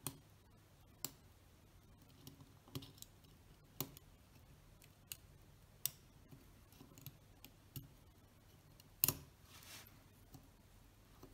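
Small, sharp metal clicks and taps of tweezers working on the parts of a Synchro-Compur leaf shutter as it is taken apart. They come singly at uneven intervals, with the loudest click about nine seconds in, followed by a brief scrape.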